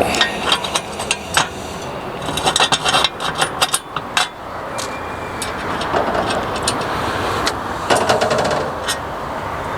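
Metal clanks, clicks and rattles from the steel parts of a motorbike loader being handled and fitted together: a quick run of knocks in the first four seconds, then a few single ones spaced out, over a steady outdoor background hiss.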